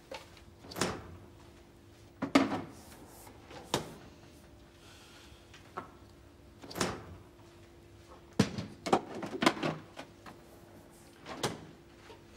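Irregular knocks and clunks, about ten of them with a quick run of several around nine seconds in, over a faint steady hum.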